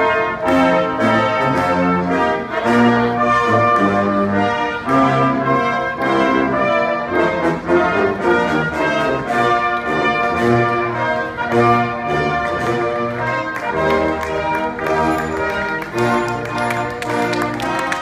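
Brass band playing a tune together, with trumpets, trombones, baritone horns and tuba, the notes changing in a steady rhythm.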